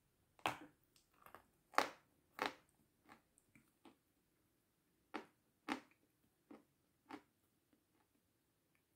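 Crisp meringue being bitten and chewed close to the microphone: irregular crunches and crackles, the loudest about two seconds in, with a few more strong ones a little past five seconds.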